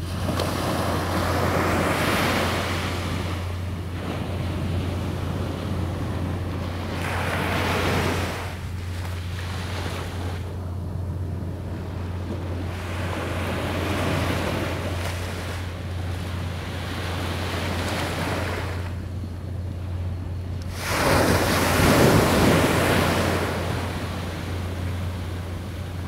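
Small waves breaking and washing on a beach in slow swells, about four or five times, the loudest near the end, over a steady low hum.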